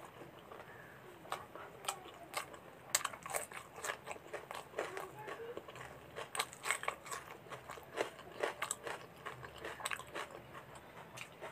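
Close-miked chewing of puri soaked in mutton gravy: a quick, irregular run of mouth clicks.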